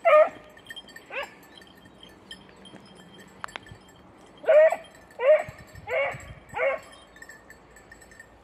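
Beagle baying on a hare's scent: six short, pitched barking bays, two spaced about a second apart, then four in quick succession about halfway through.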